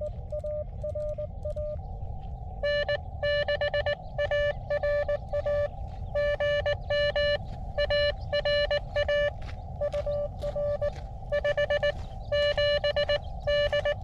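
Morse code (CW) tones from a portable HF ham radio's speaker on 40 meters, keyed in dots and dashes. A fainter tone sounds first, then a louder, harsher tone takes over from about three seconds in. Several stations are calling in a pile-up, over a steady low background rumble.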